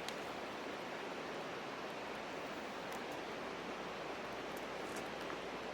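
Steady rushing of flowing stream water, with a few faint light ticks over it.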